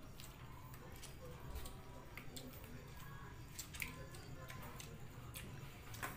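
Quiet eating sounds: scattered small clicks and squelches of children picking at rice and fried fish with their fingers on plastic plates, with chewing, over a low steady hum. One sharper click stands out about two-thirds of the way through.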